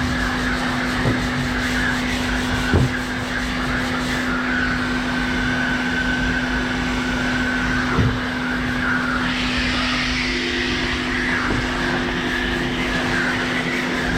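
Machine sander running steadily, sanding body filler on a vehicle panel with 120-grit paper, with a few short knocks.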